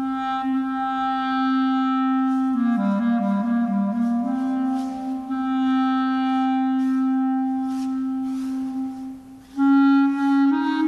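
Solo clarinet improvising: a long held note, a short run of lower notes, then the same long note again, breaking off briefly before a louder note enters near the end.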